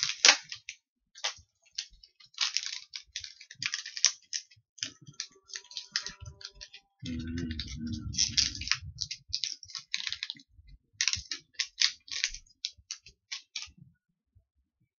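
A plastic candy wrapper crinkling and crackling in the hands as the candy is unwrapped, in irregular bursts that stop near the end. About seven seconds in, a low muffled rumble lasts for about a second and a half.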